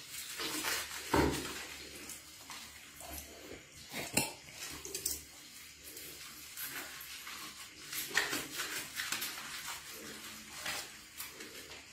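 Hands scrubbing soap into a baby monkey's wet fur, with irregular rubbing, squelching and splashing of water, and a sharp click about four seconds in.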